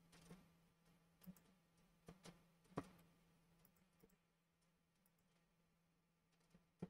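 A few faint, short computer mouse clicks, the loudest just under three seconds in, over near silence with a faint steady low hum.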